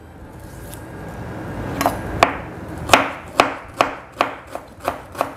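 Large kitchen knife chopping lemongrass into thin slices on a wooden cutting board: a run of sharp knocks of the blade on the wood, about two to three a second, starting a little under two seconds in.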